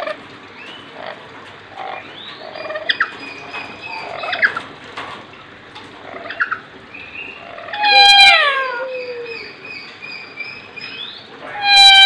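Caged lories calling: scattered short chirps and whistles, with a loud harsh squawk falling in pitch about eight seconds in and another loud squawk at the very end.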